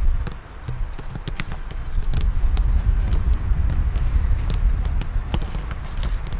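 Footballs being kicked and passed on a grass pitch: irregular sharp thuds of boots striking balls, several a second, over a steady low rumble.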